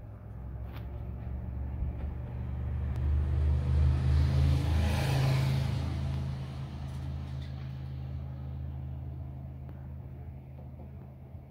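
5-inch gauge model of an SBB Ce 6/8 III Krokodil electric locomotive running on its track, its drive humming steadily and its wheels rolling on the rails. It grows louder to a peak about halfway through as it passes close, then eases off.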